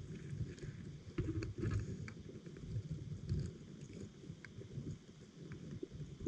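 Underwater sound picked up by a GoPro in its waterproof housing on the seabed: a muffled, irregular low rumble of moving water, with scattered sharp clicks and crackles over it.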